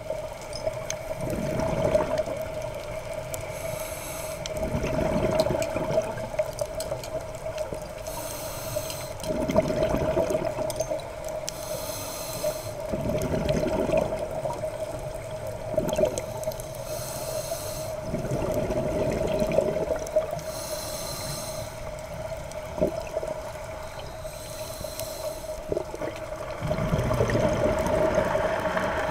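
A scuba diver breathing through a regulator, recorded underwater: a short hissing inhale followed by a gurgling rush of exhaled bubbles, repeating about every four seconds over a steady hum.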